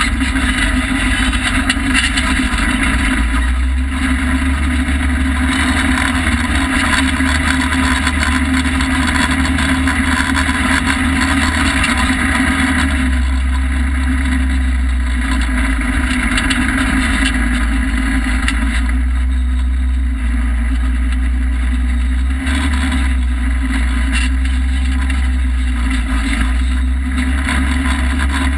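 2013 Polaris RZR side-by-side driving, its engine running steadily in a loud, constant drone with a rushing noise over it.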